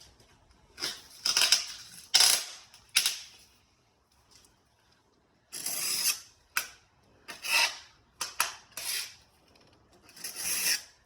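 About nine short scraping strokes, one after another with irregular pauses and a longer quiet gap in the middle.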